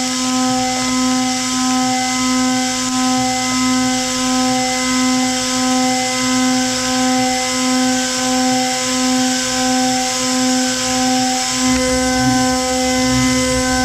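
CNC end mill cutting Inconel 718 at a constant spindle speed: a steady pitched machining tone with overtones that swells and fades in an even rhythm. About twelve seconds in, a deeper rumble joins as a different cut begins.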